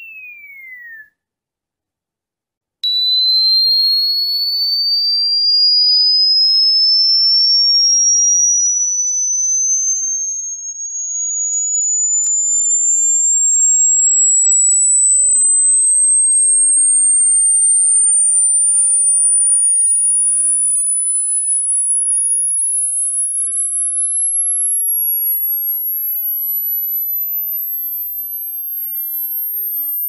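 Electronically generated pure-tone sweep, presented as an ultrasonic cricket repellent. A falling tone cuts off about a second in. After a gap of about two seconds, a single tone starts and climbs slowly and steadily to a very high whine, and near the end a second tone slides down across it.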